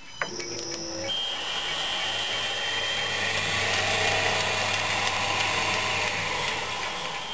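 A toggle switch clicks, and the MN-80 lathe's inverter-driven electric motor starts, turning the spindle through a poly-V belt. It then runs steadily with a high electronic whine over a low hum.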